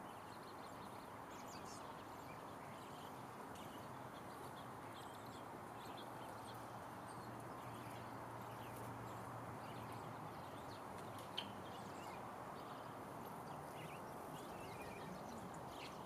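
Small birds chirping and calling in short scattered notes over a steady, faint background hiss, with one sharp click about eleven seconds in.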